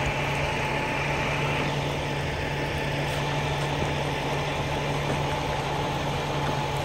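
Diesel engine of a truck-mounted crane running steadily as it holds the timber truss aloft, a constant low hum with a thin steady whine above it.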